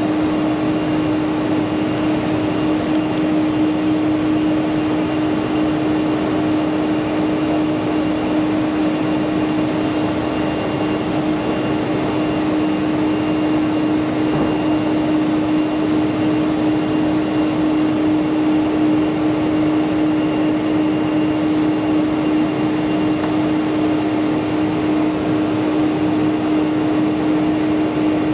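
Steady cabin noise of a Boeing 747-400 taxiing, its turbofan engines at low power: an even rush with one strong, unchanging hum.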